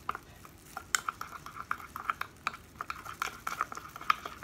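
Metal spoon stirring sauce in a ceramic bowl, clinking against its side again and again. There are about three to four clinks a second, each with a brief ring from the bowl.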